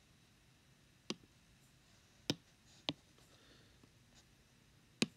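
Four short, sharp taps on an iPad touchscreen, spaced irregularly over a few seconds, while handwritten annotations are being erased on the whiteboard. Faint room tone lies between them.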